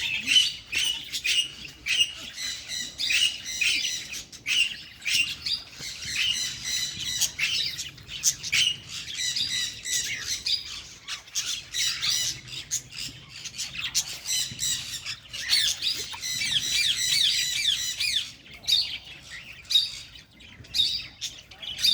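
Many small birds chirping and calling at once in a dense, overlapping chatter, thinning to separate chirps near the end.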